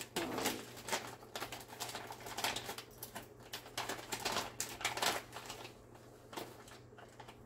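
Zip-top plastic bag of dry yeast crinkling and rustling, with light clicks of a metal measuring spoon as teaspoons of yeast are scooped out; irregular, thinning out near the end.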